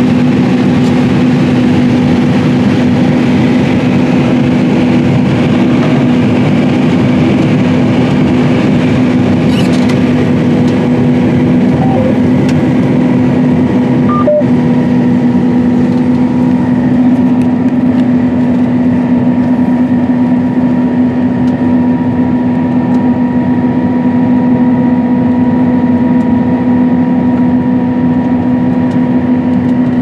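Steady drone of a 543 hp John Deere S790 combine running while harvesting corn, heard from inside its cab: a constant machine hum with one strong steady tone over a rumble.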